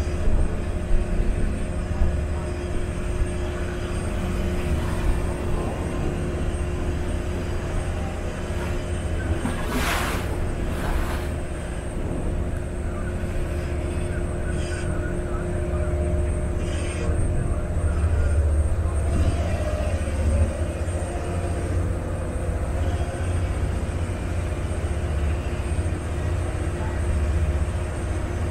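Steady low drone of a passenger water bus's engine, heard on board while under way, with wind and water noise over it. Two brief rushes of noise come about ten seconds in.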